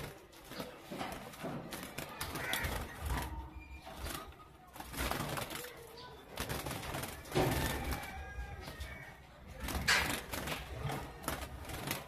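Small caged finches, goldfinches among them, fluttering and giving short chirps in a wire bird cage, with the wire rattling and clicking as hands handle the cage; the sharpest clatters come past the middle and about ten seconds in.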